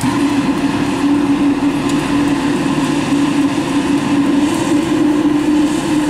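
A 75,000 BTU forced-air propane heater running just after lighting: its electric fan and burner make a steady, even drone with a hum underneath.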